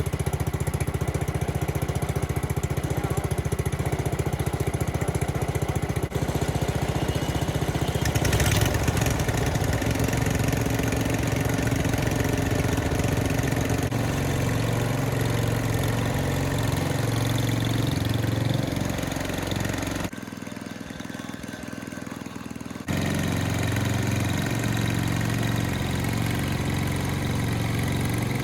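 Gasoline snowblower engines running steadily after an electric-start. About eight seconds in there is a brief louder burst, after which a steadier, more even engine note takes over; the sound drops briefly about twenty seconds in.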